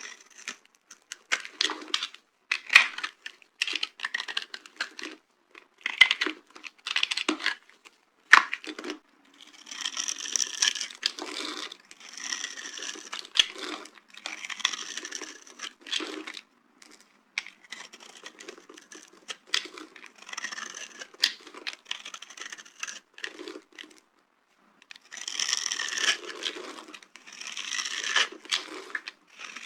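Dry soap being crushed and crumbled: crisp crunches and crackles in irregular bursts, with longer, denser stretches of crumbling.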